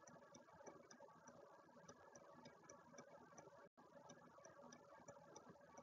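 Near silence: faint room tone with very faint, evenly spaced ticks, about three a second.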